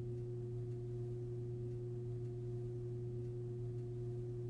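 A steady, unchanging low hum with a fainter higher tone above it; no handling clicks or knocks are heard.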